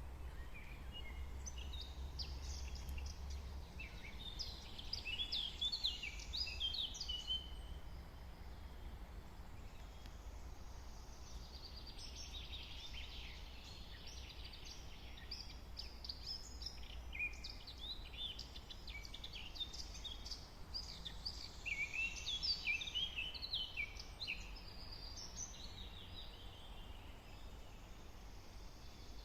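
Songbirds singing in a forest, quick chirps and trills in two long bouts, one in the first several seconds and a longer one from the middle to near the end, over a steady low rumble.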